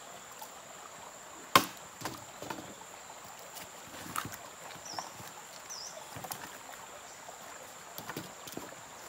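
A dry wooden branch knocks and scrapes against the rocks of a dry stream bed as it is dragged, with one sharp knock about one and a half seconds in. Scattered smaller knocks and clicks follow from the branch and from footsteps on loose stones.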